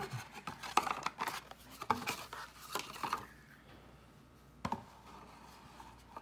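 Cardboard box and paper packaging handled by hand: a busy run of rustles, scrapes and light knocks through the first half, then quieter, with one sharp knock a little before the end.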